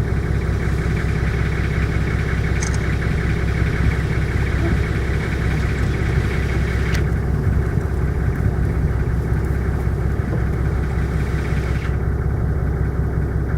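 Safari vehicle's engine running steadily with a low hum, heard from inside the vehicle.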